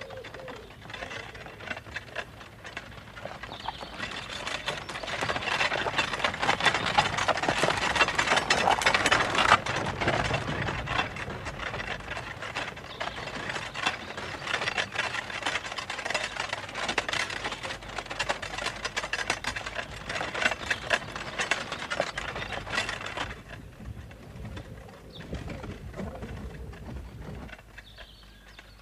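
Horse-drawn two-wheeled pony trap rattling along a woodland track: a dense, rapid clatter of hooves, wheels and body. It grows louder over the first several seconds and drops away suddenly about 23 seconds in.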